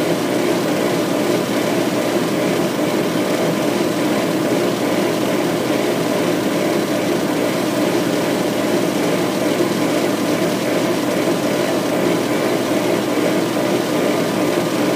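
Laser engraver running an etching job: a steady mechanical hum and whir of the machine as its head shuttles back and forth across the work.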